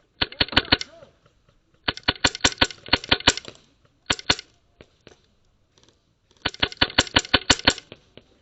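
HPA-powered airsoft rifle firing in four bursts of sharp, rapid cracks, about seven shots a second: two long strings, a short one about four seconds in, and another long string near the end.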